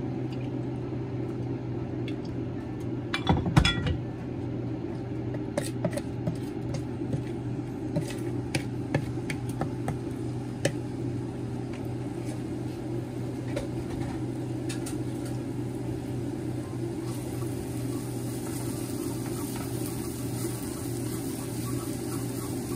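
Minced lemongrass, chili and garlic being tipped into a small nonstick frying pan and worked with a utensil, over a steady low hum. A loud knock comes about three seconds in, followed by scattered light clicks of the utensil on the pan. A faint high sizzle builds in the last few seconds as the aromatics start to fry.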